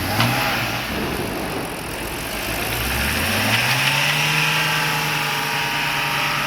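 Car engine running, its pitch rising about three seconds in and then holding steady.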